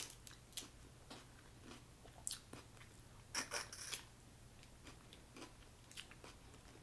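Cooked snow crab legs cracked and picked apart by hand: faint, scattered crackles and clicks of shell, with chewing and mouth sounds of eating the crab meat, loudest a little past the middle.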